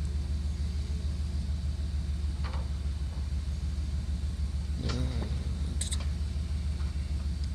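Link-Belt 4040 log loader working, its engine a steady low rumble, with a brief squeal about five seconds in.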